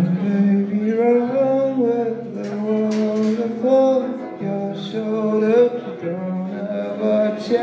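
Live rock performance: a man singing long, gliding notes into a microphone over electric guitar.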